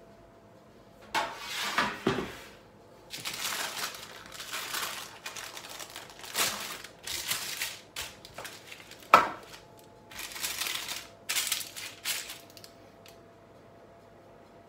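Baking parchment rustling and crinkling in several bursts as a pizza on it is moved onto a metal baking tray and the paper is handled, with a single sharp knock about nine seconds in.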